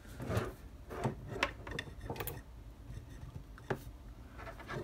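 Cables and plugs being handled on a workbench while a power cord is plugged into a computer power supply: several irregular clicks and knocks.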